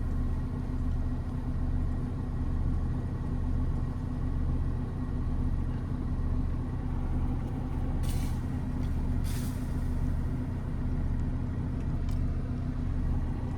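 A motor vehicle's engine idling steadily, a low even hum, with two short hisses about eight and nine seconds in.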